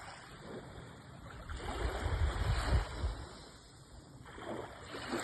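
Calm sea waves washing onto the shore. One surge swells about two seconds in, with a deep rumble, and fades; another begins near the end.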